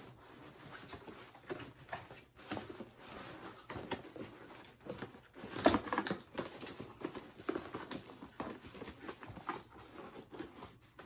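Cardboard box and packaging rustling and knocking as items are pulled out by hand, with one sharper knock about six seconds in.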